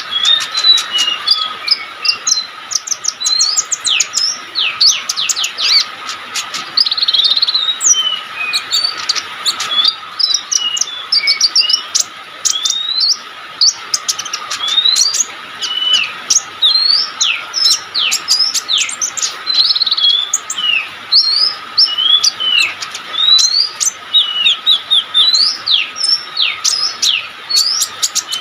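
A small songbird sold in Indonesian bird-keeping as 'konin' singing hard without pause: a fast, busy run of sharp high chirps and quick falling whistles, many of them steep downward slurs. A steady high tone sounds underneath throughout.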